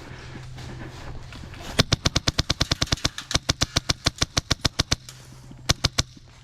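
Airsoft gun firing a rapid full-auto burst of about thirty sharp shots at roughly ten a second, lasting about three seconds, then two quick shots close together near the end.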